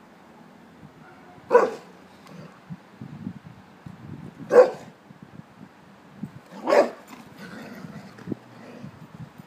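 A sighthound gives three short, sharp play barks a few seconds apart while two dogs wrestle in play.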